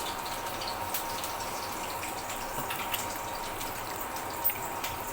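Running tap water with a few small knocks as charred, freshly roasted ginger root is rinsed by hand to wash off its burnt skin.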